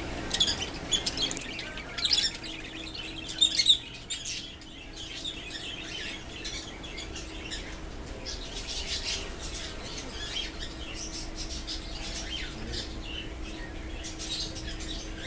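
Caged birds chirping and chattering without pause, with a few louder, sharper calls in the first four seconds, over a faint steady hum.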